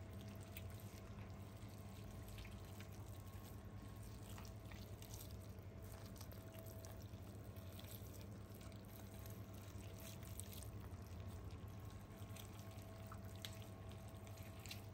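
Tender cooked veal being pulled apart by rubber-gloved hands: faint, scattered wet squishing and tearing, over a steady low hum.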